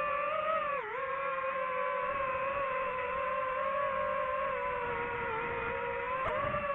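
DJI FPV drone's propellers and motors whining in flight: one steady high-pitched tone that dips briefly about a second in and again near the end as the throttle eases.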